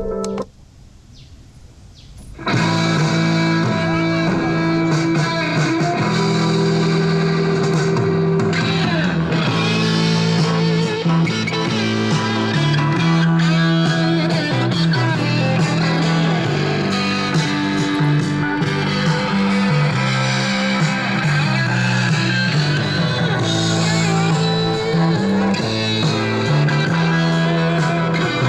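Music with electric guitar and a steady bass line, played through the three-wheeler's MP3 player speakers. After a brief drop in level near the start, the song runs loud.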